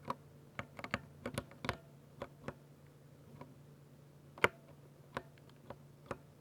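Typing on a 60% Ducky mechanical keyboard with silver switches: irregular keystrokes, a quick run of clacks in the first two seconds, then slower scattered ones with one sharp loud clack about four and a half seconds in.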